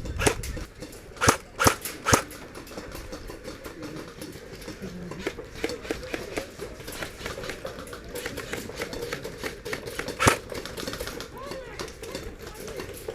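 Airsoft guns firing: four sharp snaps in the first two seconds and another about ten seconds in, with fainter scattered clicks of shots between.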